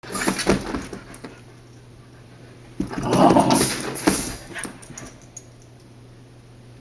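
Puppies play-fighting at a wire dog crate: scuffling, with the crate's wire rattling and clattering in two loud bursts, one at the start and a longer one about three seconds in, then dying away.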